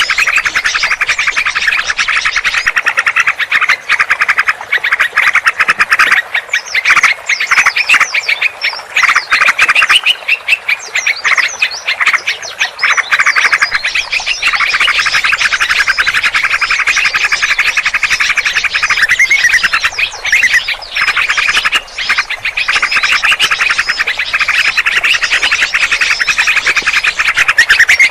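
A dense mix of many small birds chirping and calling at once, a continuous noisy chorus of fast, high chirps and trills: a combined bird-lure recording of the kind used to draw birds in for trapping.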